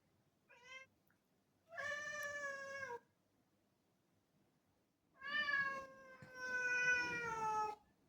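Black domestic cat meowing three times, asking for a door to be opened: a short faint meow, then two long drawn-out meows, the last one slowly falling in pitch.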